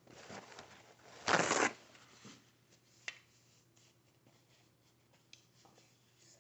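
Rustling and crackling as the seafood boil is handled, with a louder burst about a second and a half in and a single sharp click around three seconds, then only faint small clicks.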